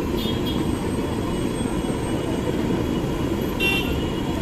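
Jalebis deep-frying in a karahi of hot oil over the stall's burner: a steady low rumbling noise, with a short metallic clink about three and a half seconds in.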